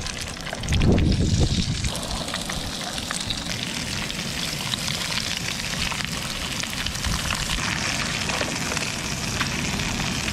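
Whiting fillets and a whole tarwhine sizzling in hot oil in a frying pan, a steady hiss with small crackles and spits throughout. A brief low rumble comes about a second in.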